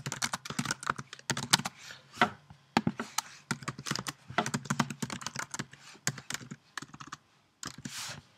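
Computer keyboard typing: irregular runs of quick key clicks as text is entered.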